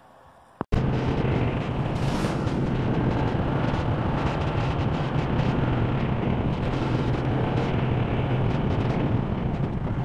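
Honda Monkey 125's single-cylinder engine running at a steady pace under way, with wind noise on the microphone. It starts abruptly under a second in and holds steady.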